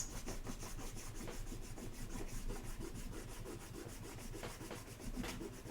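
An eraser rubbing pencil lines off paper in quick back-and-forth strokes.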